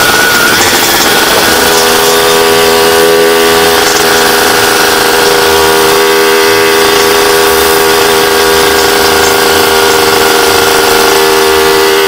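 Suzuki Satria 120 S two-stroke motorcycle engine with an aftermarket W-One Racing exhaust, running while riding. After a short drop in pitch near the start, the engine note holds steady at constant revs.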